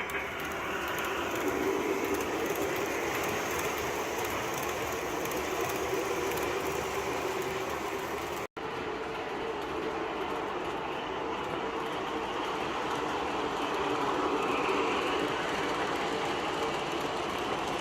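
An MTH O-scale model of an R-40 Slant subway train running on three-rail track, its onboard sound system playing subway-car running sounds with wheel clatter. The sound drops out for an instant about halfway through.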